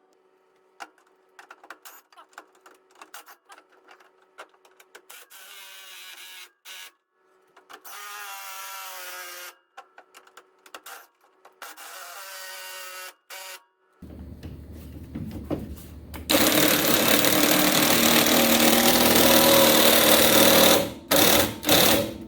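Hand work on metal parts: scattered clicks, short rattles and squeaks. Then a power tool runs loudly and steadily for about four seconds and stops near the end.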